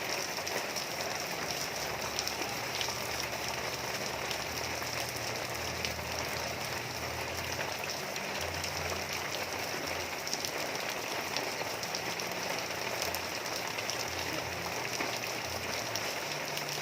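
Steady rain falling, with scattered drops ticking on surfaces.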